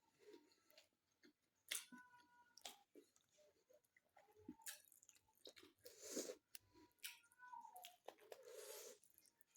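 Faint close-up chewing: scattered wet mouth clicks and smacks, with a few short crunches, as a person eats.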